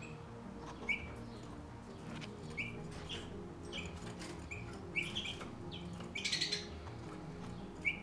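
Small songbirds chirping: short, high, slightly falling calls about once a second, with a quick rapid flurry of calls about six seconds in. A faint, low, steady hum sits underneath.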